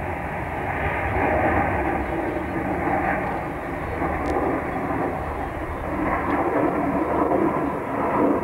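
Jet fighter flying a display pass, a steady jet roar that swells and eases slowly.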